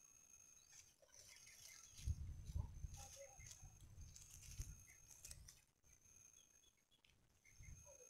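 Faint outdoor background: a thin, steady high tone with small scattered chirps, and a low rumble from about two seconds in to past the middle, typical of handling or wind on the microphone.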